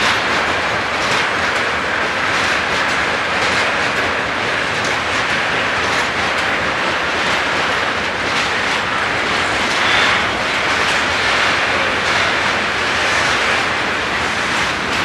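Freight train of railway tank wagons rolling past: a steady rumble of steel wheels on rail, with repeated clicks as the wheelsets cross the rail joints.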